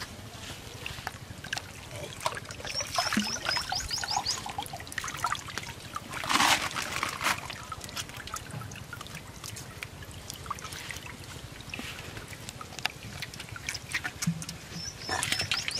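Shallow pond water splashing and trickling as hands work in it, lifting a caught cuchia eel and handling it at a net basket. There is a louder splash about six seconds in.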